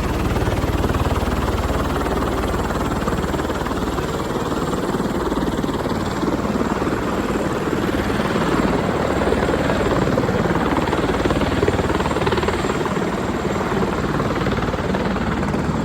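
Helicopter running: a steady, continuous rotor and engine noise with no change in level.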